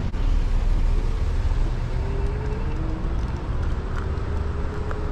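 City road-traffic noise with a steady low rumble, heard from a moving electric kick scooter, and a faint hum that drifts slightly in pitch.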